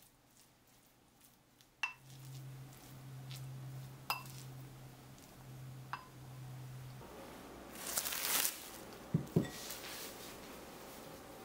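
Wooden spoon stirring a moist tuna, corn and cheese filling in a glass bowl: soft mushy stirring with three clinks of the spoon against the glass, each leaving a short ring. Near the end come a brief rustle and two quick low knocks as a glass bowl is handled.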